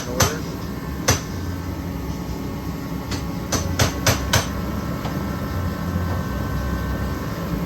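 A few sharp knocks on something hard: two near the start, one about a second in, and a quick cluster between about three and four and a half seconds in. Under them runs a steady low hum.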